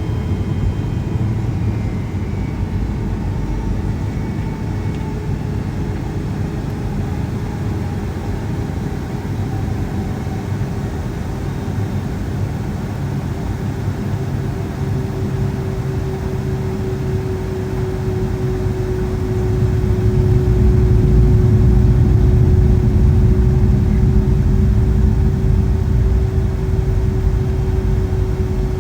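Boeing 757-200's jet engines heard from inside the passenger cabin: a steady low rumble with a single tone that drifts slowly lower, growing louder about twenty seconds in.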